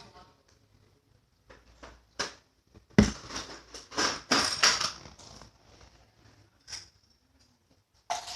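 Slime being squished and pressed by hand: a series of short, irregular squelching and crackling sounds, with a sharp knock about three seconds in and the loudest run of crackling between about four and five seconds.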